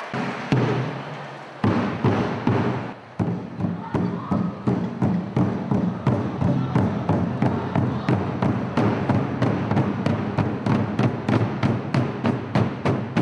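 A troupe of Vietnamese barrel drums beaten with sticks: a single stroke about half a second in, then the ensemble comes in about a second and a half in and plays a steady rhythm of about three strokes a second.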